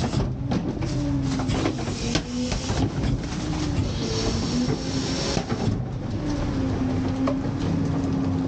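McNeilus rear-loader packer cycling: the hydraulics drive the packing panel through its stroke with a steady whine that wavers in pitch, over clanks and rattles of the steel panel and hopper. A stretch of hissing comes about halfway through.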